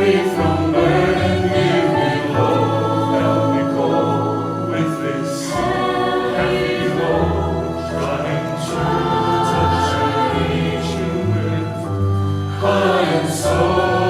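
A choir singing held notes over an instrumental backing with slowly changing bass notes.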